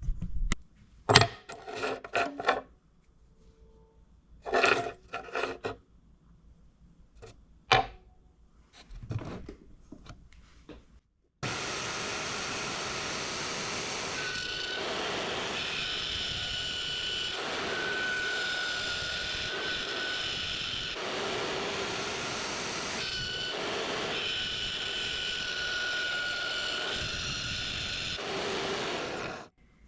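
A few clicks and knocks of parts and tools being handled, then a bandsaw starting suddenly and running steadily as it cuts metal bar stock, with high ringing tones from the blade coming and going. The saw stops abruptly just before the end.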